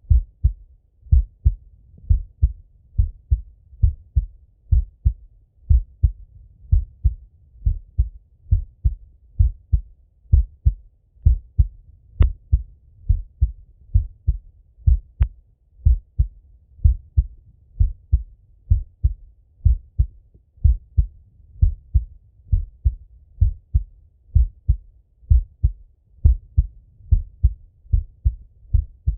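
A man's heartbeat heard through a stethoscope on his own chest. It is a slow, steady lub-dub double thump, about once a second.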